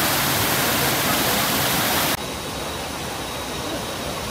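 Steady rush of a small waterfall pouring over rocks and splashing into a shallow pool. A little over two seconds in, the rush drops suddenly to a somewhat quieter level.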